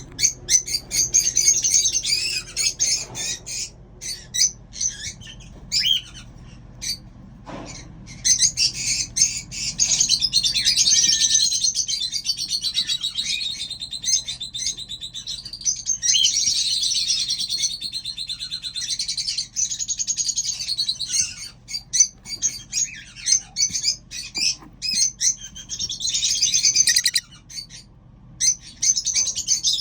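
Several small pet birds chirping and chattering almost without pause in rapid, high calls, with a single sharp click about seven and a half seconds in.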